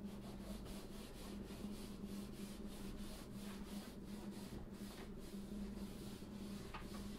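A hand rubbing over a Faller printed paper backdrop sheet, smoothing it onto spray-adhesive-coated wall board in repeated short strokes, a few a second, over a steady low hum.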